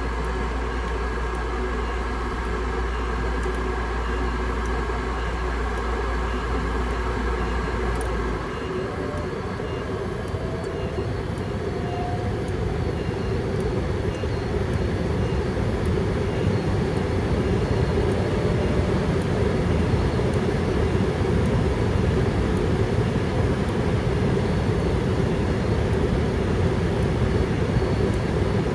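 Furnace running with a steady low hum that cuts off about eight seconds in. A few seconds later a broad rushing air noise builds up and holds, typical of the circulation blower coming back on after the limit switch has tripped.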